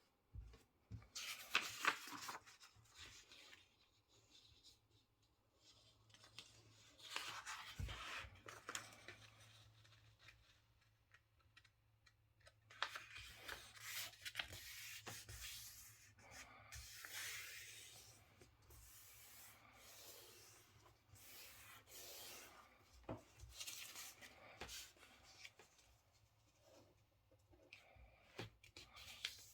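A square sheet of paper being handled, folded and creased, rustling and rubbing in several bursts as the folds are pressed flat.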